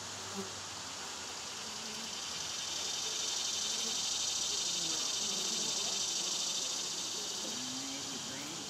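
Cicada song: a steady high drone that swells over a few seconds in the middle and then eases off. Faint wavering buzzes of honey bees flying at the nest entrance in a maple trunk lie under it.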